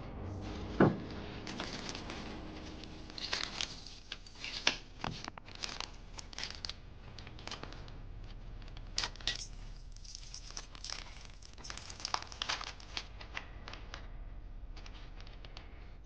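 Small paper wrappers of adhesive bandages being torn open and crinkled by hand: a run of short, irregular rips and crackles, with a single louder thump about a second in.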